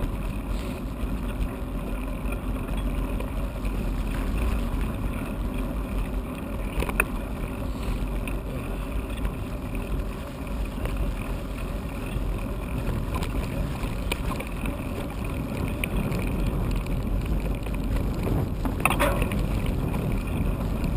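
Steady rumble of bicycle tyres rolling on a tarmac path, mixed with wind on the microphone as the bike rides along. A sharp click or knock sounds about a third of the way in and another near the end.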